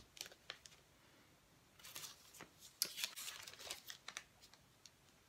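Paper strips rustling and crinkling as they are handled, with scattered light clicks, mostly from about two to four seconds in.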